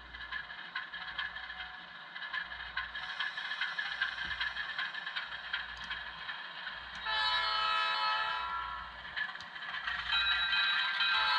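HO scale Atlas ALCO diesel model locomotive with its factory sound decoder, running with a diesel engine sound and a light clatter. About seven seconds in the air horn sounds for about two seconds, and near the end it sounds again.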